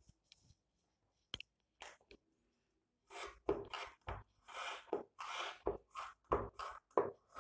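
Tailor's scissors cutting through thick fabric. A few faint clicks come first, then from about three seconds in a steady run of snips, two to three a second, as the blades chew along the cutting line.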